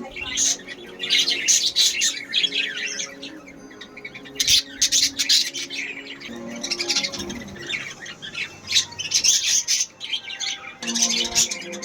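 Lovebirds chirping and squawking in rapid, shrill clusters that come and go every second or two, over background music.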